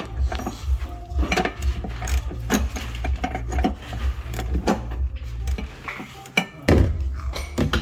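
Metal hand tools and engine parts clinking and clattering in irregular short knocks during work on a car engine, with a louder knock near the end.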